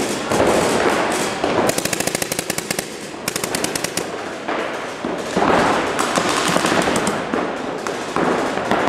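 Paintball markers firing in a game, shots from several players overlapping. Two rapid strings of about a dozen shots a second come around two and three seconds in.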